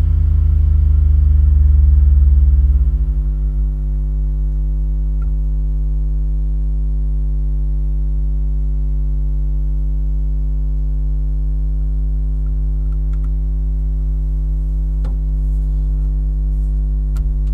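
Seagate Exos 7E10 10 TB, 7,200 RPM hard drive spinning at speed: a steady hum of several tones. A deeper drone fades away about three seconds in, and a few faint clicks come later.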